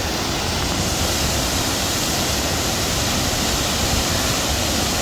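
Waterfall pouring: a loud, steady, even rush of falling water.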